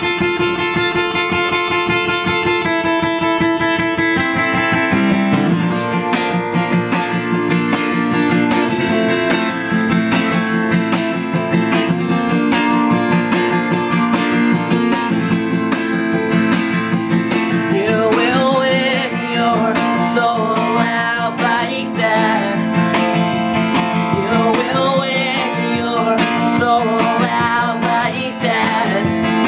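Acoustic guitar played live, strummed in a steady driving rhythm after a few ringing opening chords. A man's singing voice comes in about eighteen seconds in.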